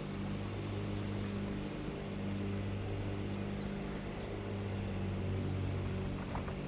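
Boat's outboard motor idling, a steady low drone that holds even throughout.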